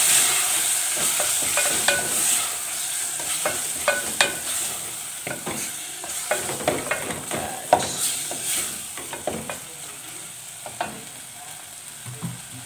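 Wooden spatula stirring creamy button mushrooms in an aluminium pot, scraping and knocking against the pot now and then over the steady sizzle of the food cooking. It grows gradually quieter toward the end.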